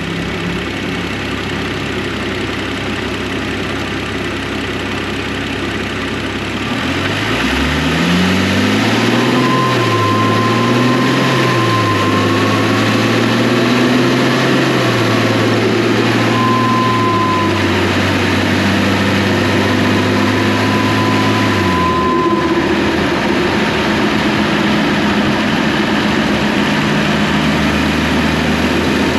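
BMW N55 turbocharged straight-six idling, then revved up about seven seconds in and held at raised revs with the pitch wavering, dropping back to idle after about 15 seconds. A thin high whistle comes and goes while the revs are up.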